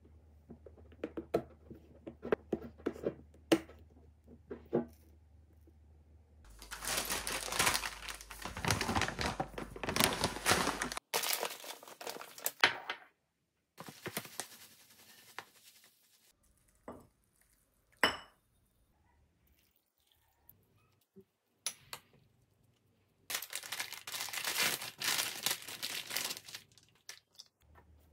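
Packaging being torn open and crinkled in several separate bursts, between light clicks and knocks of things being handled.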